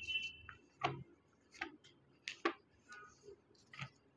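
Faint, irregular clicks and taps, about six in all, as the pages of a printed law act are handled and turned.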